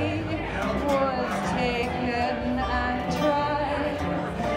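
Guitar music: plucked notes under a melody line that bends and glides in pitch.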